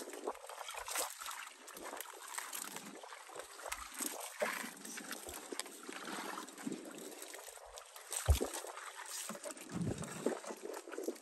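Water sloshing and splashing irregularly, with one sharp knock a little past eight seconds in.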